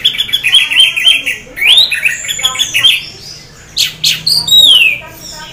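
Orange-headed thrush singing in half breeding condition: fast runs of quick repeated notes, with a rising whistle about two seconds in and a falling whistled note near the end.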